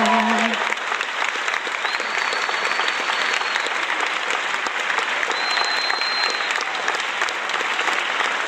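A group of people applauding, a dense steady clapping that starts as the last held sung note fades about half a second in.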